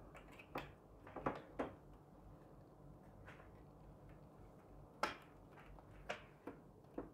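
Faint plastic clicks and knocks as an air purifier's filter panel is handled and pushed into place, several separate clicks with the sharpest about five seconds in.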